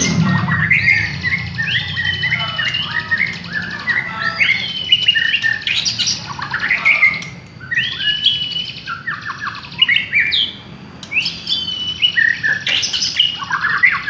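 White-rumped shama singing a continuous, varied song: a fast run of loud whistled phrases, with rising and falling sweeps and short chattering notes.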